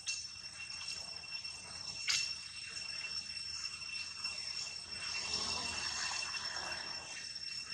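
Steady high-pitched insect drone of the forest, with a brief sharp sound about two seconds in.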